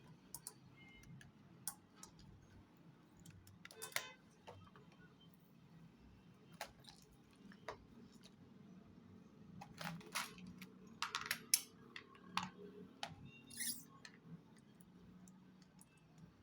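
Hands handling a glue gun and its packaging: scattered small clicks, taps and crinkles, busiest around ten to twelve seconds in, over a faint low hum.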